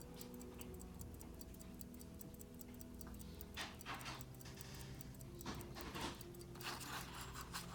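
Hampden pocket watch's 7-jewel movement ticking faintly, in a quick, even rhythm: the freshly serviced watch is running. A few soft handling rustles come partway through.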